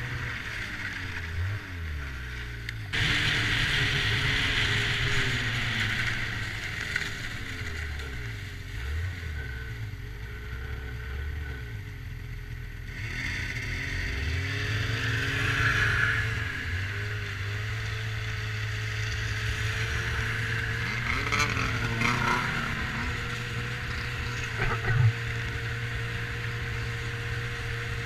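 Snowmobile engine running under the rider, revving up and down, with wind and track hiss that grows louder as it speeds up about three seconds in and again near the middle. A short knock comes near the end.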